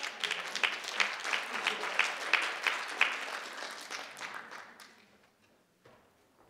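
Audience applauding, with one nearby pair of hands clapping sharply about three times a second above the rest. The applause thins out and dies away about five seconds in.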